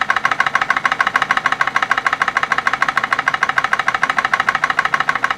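PMR 1B1 1880's steam drilling engine, a 1-inch bore double-acting horizontal model steam engine, running steadily at its normal speed on steam from its boiler, with a rapid, even beat.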